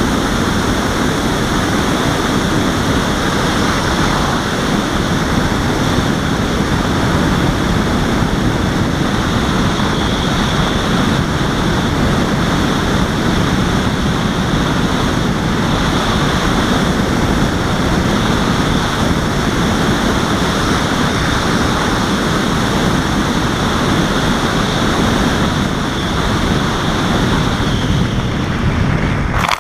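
Steady, loud rush of airflow over the onboard camera microphone of a Robbe Arcus Sport RC glider in flight, with a thin, steady high whine above it.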